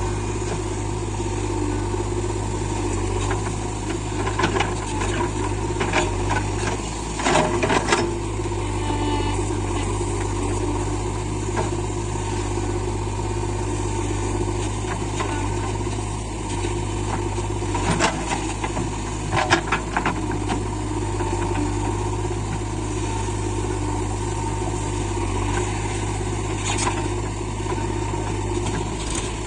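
JCB backhoe loader's diesel engine running steadily while it loads mud, with a few short knocks and clanks at intervals.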